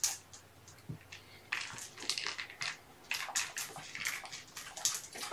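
Close handling noise: an irregular run of short crinkly rustles and scrapes with a couple of sharp clicks, growing busier from about a second and a half in.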